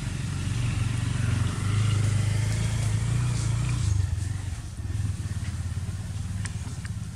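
Motor vehicle engine running nearby as a low, steady hum that is loudest in the middle and eases off after about four seconds, with a couple of faint clicks near the end.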